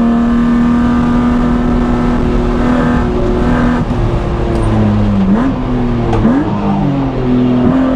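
BMW E36 M3 straight-six engine under way at steady revs for nearly four seconds. The revs then drop and climb sharply several times as the driver lifts off and shifts.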